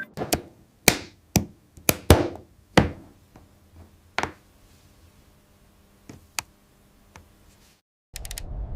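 A quick, irregular run of sharp knocks and taps, about eight in the first three seconds, then a few fainter taps spread further apart.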